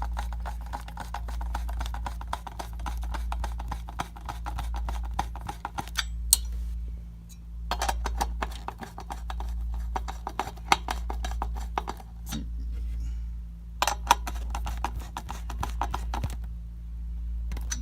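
Screwdriver turning the Noctua NH-U14S CPU cooler's mounting screws, heard as rapid runs of small metallic clicks in three stretches with short pauses between, over a steady low hum.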